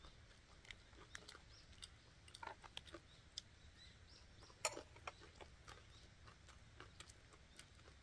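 Near silence with faint, scattered clicks and smacks of people chewing food. The sharpest click comes a little past halfway.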